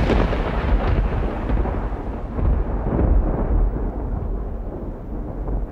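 Thunder: a loud clap dying away into a long, low rolling rumble that swells and fades.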